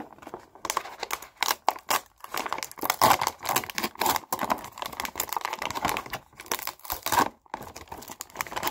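Foil seal being torn and peeled off a plastic toy blind-box tray, crinkling and tearing in quick, irregular crackles.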